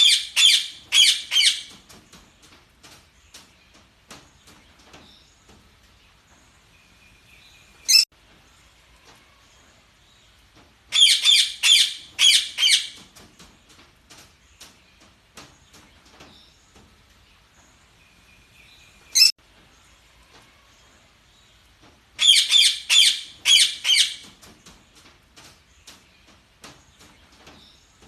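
Budgerigars chirping: three loud bursts of rapid high chirps, each about two seconds long and coming roughly every eleven seconds, with a single sharp chirp between each pair of bursts and soft scattered chirps and clicks in between.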